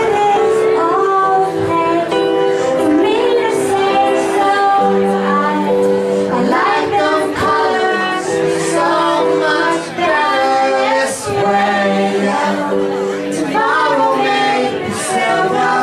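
A song performed live: singing voices over long held instrument notes.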